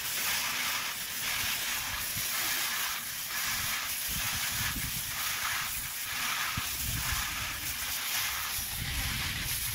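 Garden hose spray nozzle hissing steadily as it jets water into a stainless steel bowl of fish fillets, with splashing and sloshing in the bowl as the fillets are rinsed by hand.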